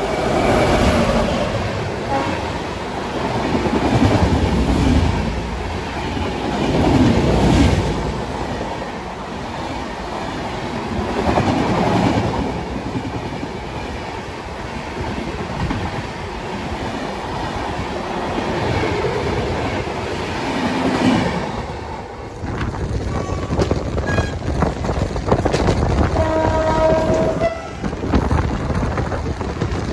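An express train hauled by an electric locomotive passes close alongside on the next track, its wheels rumbling and clattering over the rail joints in swells as the coaches go by. After a cut, a second passing train is heard and a train horn sounds once for about a second near the end.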